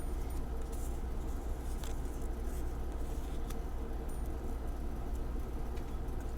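Tarot cards being handled, with a few faint brief rustles and clicks as they are turned over and set down, over a steady low background hum.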